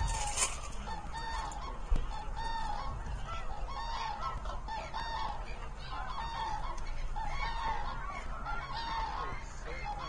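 A large flock of common cranes calling, many trumpeting calls overlapping without pause, with a single sharp click about two seconds in.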